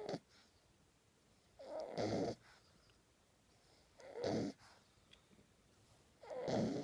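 French bulldog puppy snoring in its sleep, one snore about every two seconds: three full snores plus the tail of one at the start.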